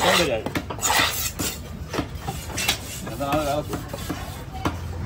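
A heavy cleaver chopping fish on a wooden log block, giving a series of irregular sharp knocks, with voices in the background.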